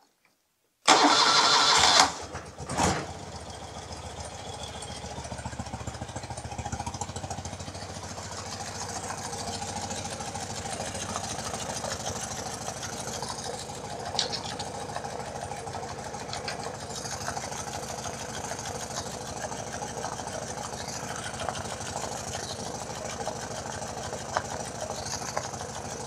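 BMW R90/6 air-cooled flat-twin boxer engine started: about a second of loud cranking, then it catches with a short blip and settles into a steady idle with a few faint ticks. It idles while the owner listens for a top-end tick that he hears on one cylinder and not the other.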